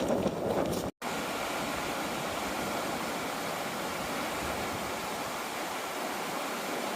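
Steady rush of flowing river water, an even noise with no pitch, starting after a short break about a second in.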